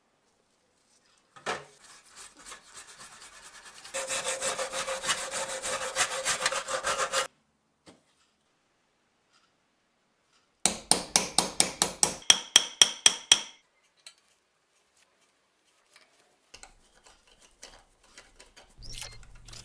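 Hand abrading of a coffee grinder part: rapid back-and-forth rubbing strokes that grow louder about four seconds in. After a pause comes a quick run of about a dozen sharp rasping strokes, about four a second, with a ringing tone.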